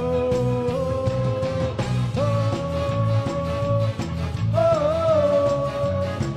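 Live ska band music: the horn section, trombone and trumpet, plays three long held notes, sliding up into each, over a steady drum and bass beat.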